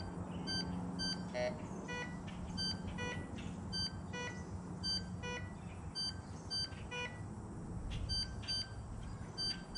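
Ricomax metal detector beeping as a Barber silver quarter is moved over its search coil: a dozen or so short, irregular beeps in a few different pitches, each one the detector signalling the coin in range. The tone given for the silver Barber quarter sounded a little different from the other targets.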